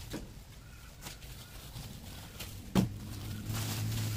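Thin plastic sheeting rustling and crinkling as it is handled and spread over a car. A sharp click a little under three seconds in, after which a steady low hum sets in.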